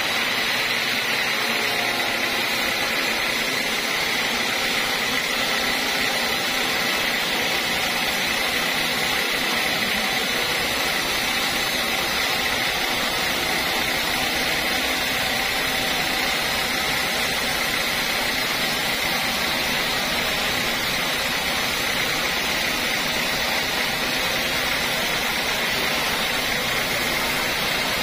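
Sawmill band saw running steadily and ripping a teak log lengthwise, a continuous mechanical noise with a steady high whine.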